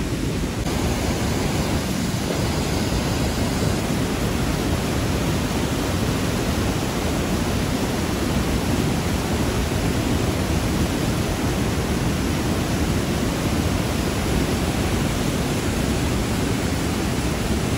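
River in flood pouring over a weir: a loud, steady rush of churning water.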